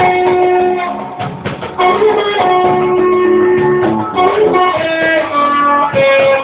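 Band music led by guitar: a melody of held notes that changes pitch every half second or so, over strummed chords.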